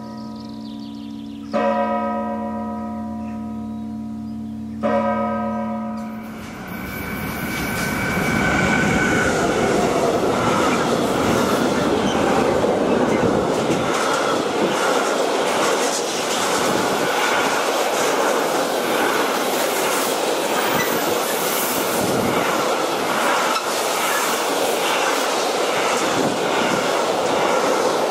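A church bell strikes twice in the first few seconds, each stroke ringing on and humming away. From about six seconds in, an intermodal freight train of container and tank-container wagons passes close at speed: a steady, loud rumble and rattle of wheels on rail.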